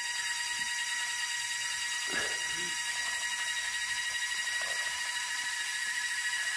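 A steady high-pitched buzz made of several tones at once, unchanging throughout, with a brief faint murmur of a voice about two seconds in.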